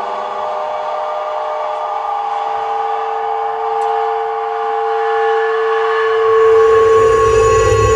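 Stage music: a held chord of steady sustained tones that slowly swells, with a deep low rumble coming in about six seconds in.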